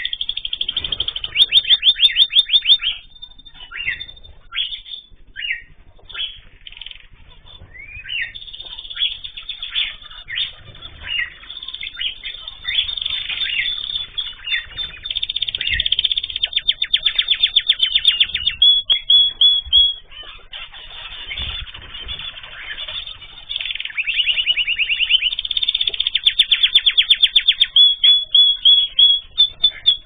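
Domestic canary singing: several long, very rapid trills, the longest near the end, strung between shorter varied chirps and phrases.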